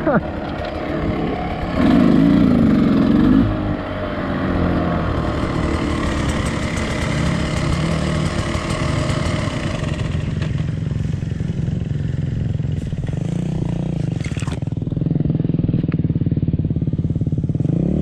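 Beta RR250 two-stroke dirt bike engine running: a louder wavering rev about two seconds in, then idling steadily while the bike stands still, with a short rise in revs at the very end.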